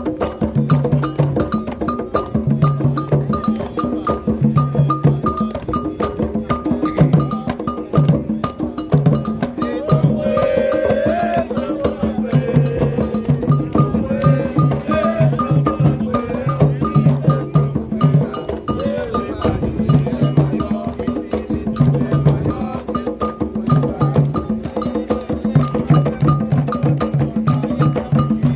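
Candomblé toque: atabaque hand drums played in a fast, dense rhythm, with a struck metal bell repeating a steady pattern over them.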